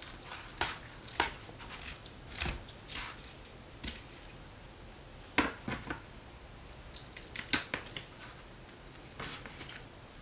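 Knife cutting through a smoked turkey wing, with irregular short crunches of the skin and joint and clicks and scrapes of the blade on a plastic tray; the sharpest come about five and a half and seven and a half seconds in.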